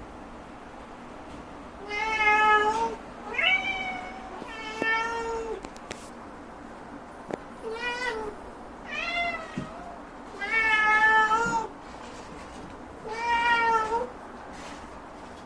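Domestic cat meowing about seven times in a row, each call half a second to a second long with short gaps, demanding its food before mealtime.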